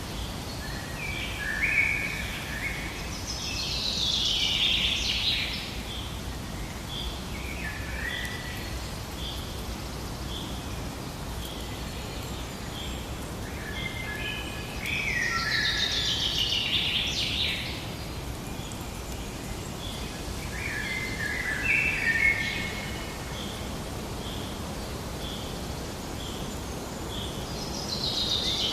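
Wild songbirds singing in short, complex phrases every several seconds. A soft, high note repeats steadily a little more often than once a second, over a steady background hiss of outdoor ambience.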